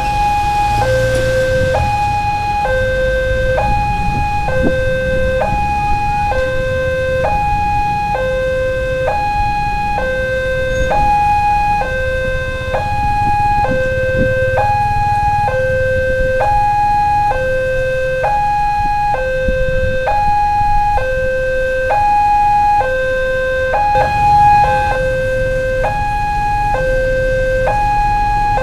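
Railway level-crossing warning alarm sounding its two-tone electronic signal, a higher and a lower note alternating about every three-quarters of a second, warning that a train is approaching and the barriers are down.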